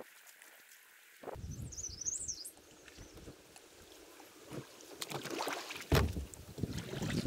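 Kayak paddling: a double-bladed paddle dipping and splashing water, with low wind rumble on the microphone after a quiet first second. A bird gives a short wavering call about two seconds in, and a louder knock with a rumble comes about six seconds in.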